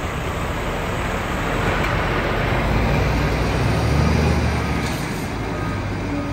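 Scania R450 articulated lorry's six-cylinder diesel engine running as the loaded bulk tipper moves off slowly. The engine note swells around the middle and eases again toward the end.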